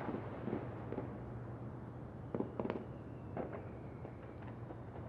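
Fireworks going off: scattered pops and crackles, the sharpest pair about two and a half seconds in, over a steady low hum.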